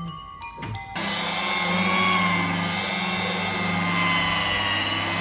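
Electric rotary polisher running steadily with a whine, its pad buffing compound into a car's paint; the pitch wavers slightly as it is pressed and moved. It starts suddenly about a second in, after a brief snatch of music.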